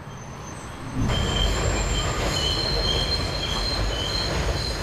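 Elevated subway train passing: a loud rumble that sets in suddenly about a second in, with high steel-wheel squeal coming and going over it.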